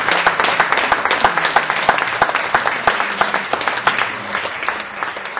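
Audience applauding: dense, steady clapping from many hands that begins to ease off near the end.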